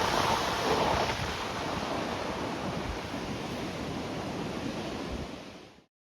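Rough sea waves surging, with wind buffeting the microphone; the last of a passing train dies away in the first second. The sound fades and cuts to silence shortly before the end.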